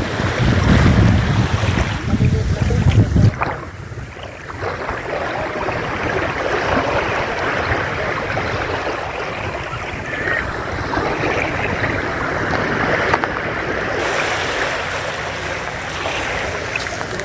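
Sea waves washing onto a beach in a steady rush of surf, with wind buffeting the microphone for the first three seconds or so.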